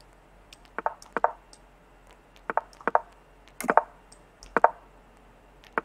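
Short knocking clicks of online chess moves, about seven in quick succession, several in close pairs, with fainter sharper ticks between.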